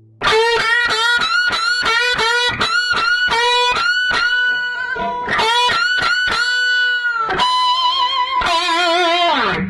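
Guitar playing a short riff: a quick run of plucked notes with bent pitches, a long held note, then wavering notes with vibrato, ending in a slide down in pitch that cuts off.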